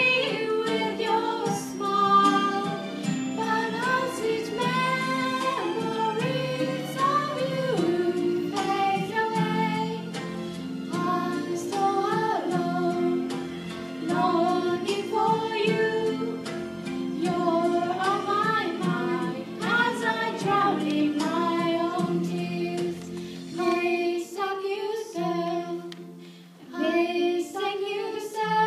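A woman singing a melody into a microphone over instrumental accompaniment.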